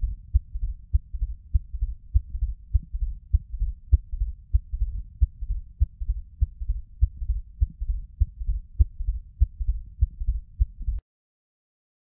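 Heartbeat recorded through a Thinklabs One digital stethoscope from a patient with minor cardiomyopathy: repeated low thuds, with a third heart sound right after the second, giving a gallop rhythm. Stops abruptly about 11 seconds in.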